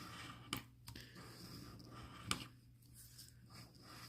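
Faint scratching as the coating is rubbed off a scratch-off lottery ticket, with a couple of light sharp clicks.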